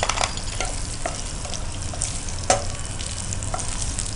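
A tempering of mustard seeds, cumin, chana dal, peanuts and green chillies sizzling in hot ghee in a nonstick kadai while a spatula stirs it. There are a few sharp clicks, the loudest about two and a half seconds in.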